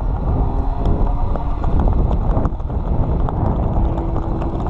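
Wind buffeting an action camera's microphone, with scattered light knocks from the hand-held pole and a faint steady drone in the background.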